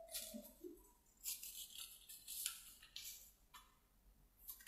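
Faint, brief rustling: half a dozen short noisy scratches at uneven intervals in a near-silent room.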